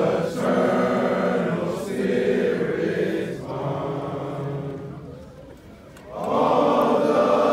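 A group of men's voices, Alpha Phi Alpha fraternity brothers, singing together in slow, long held notes. One phrase fades away, and a second swells in about six seconds in.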